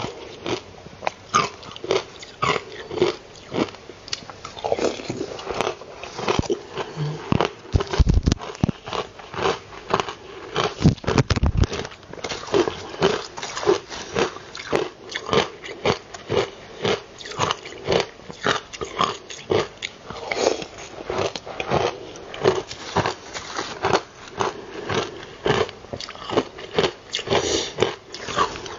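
Close-miked crunching and chewing of frozen ice: rapid crackling crunches several times a second, with two dull low thumps about eight and eleven seconds in.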